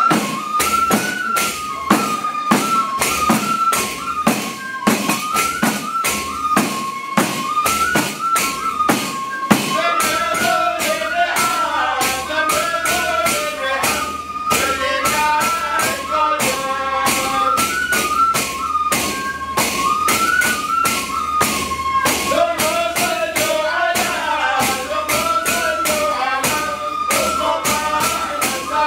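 Large frame drums struck in a steady, dense rhythm, with a high stepping melody over them. From about ten seconds in, a group of men's voices joins the melody in a traditional Hadrami chant.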